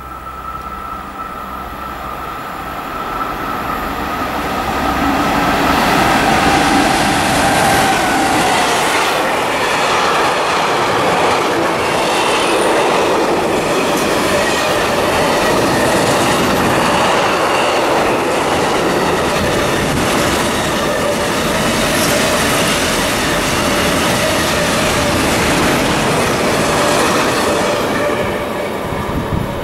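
Freight train of tank wagons passing close by. It grows louder over the first several seconds as it approaches, then a long steady run of wagons goes by with a rhythmic clatter of wheels over rail joints. The sound falls away near the end as the last wagons pass.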